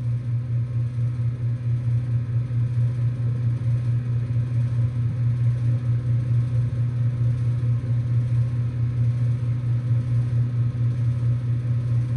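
Ruud Achiever Endeavor Line heat pump outdoor unit running in heating mode soon after start-up: a steady low compressor hum with a rattle, which the owner takes for something loose inside.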